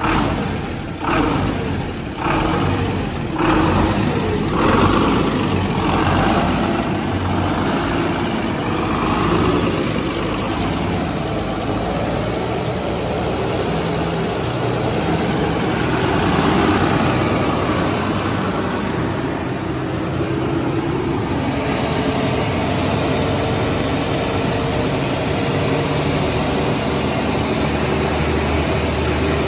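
A diesel generator engine running steadily, heard with a workshop's noise. Several sharp knocks come in the first five seconds. About two-thirds of the way through, the sound settles into an even, steady hum.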